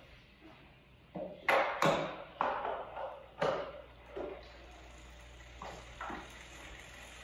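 A run of sharp clicks and knocks from cycling shoes, cleats and pedals as a rider mounts a bike on an indoor trainer and clips in, then a steady faint hiss from about halfway.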